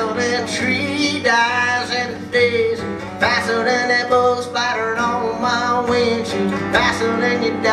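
Live country song: a steel-string acoustic guitar strummed, with a male voice singing over it.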